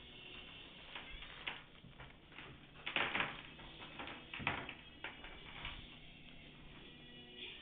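A thin plastic bag crinkling and rustling as a cat paws and noses into it, in scattered bursts, loudest about three seconds in and again about four and a half seconds in.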